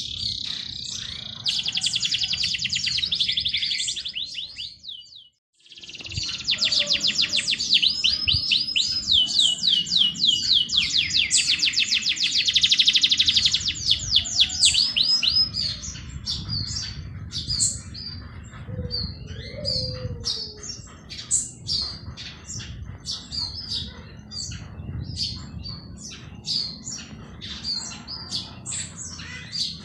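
Songbirds singing: fast, high trills, then many scattered short chirps from several birds in the second half. The sound cuts out briefly about five seconds in.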